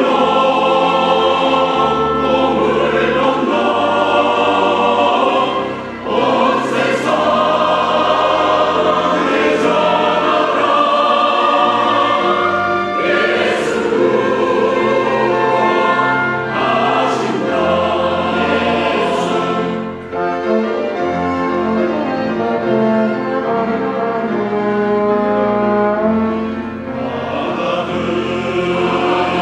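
A church choir singing a sacred anthem in parts over instrumental accompaniment, with sustained bass notes underneath.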